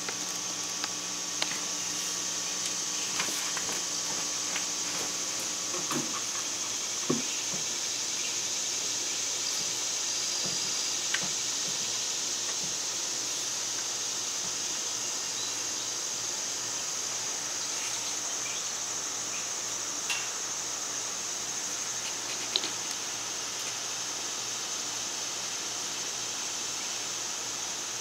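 Steady high-pitched drone of a late-summer insect chorus, with a few scattered sharp taps.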